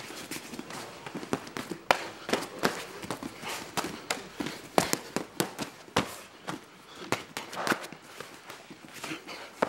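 Muay Thai sparring: punches and kicks landing on boxing gloves and shin guards as irregular sharp smacks, with bare feet stepping on a foam mat. The hardest smacks come about 2 and 5 seconds in.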